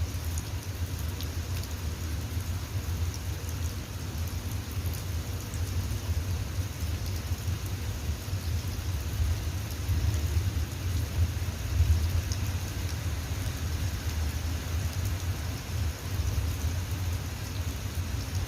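Steady rain falling, with scattered drop ticks over an even hiss and a steady low rumble underneath.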